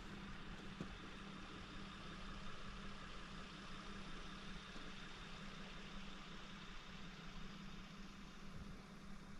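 Vehicle engine running steadily, heard faintly as a constant low hum.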